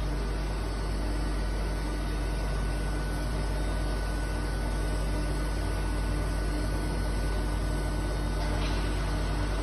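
DMG MORI DMC 80 U duoBLOCK five-axis machining center running with coolant spraying, heard through its closed enclosure: a steady mechanical hum with a faint high steady whine, no change in level.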